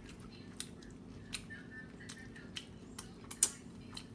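A person chewing tacos, with about six short, sharp mouth clicks and smacks; the loudest comes near the end.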